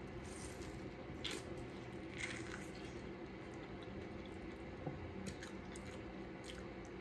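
Faint wet squishing and a scattering of soft clicks of eating a sauce-drenched seafood boil: chewing and handling the food.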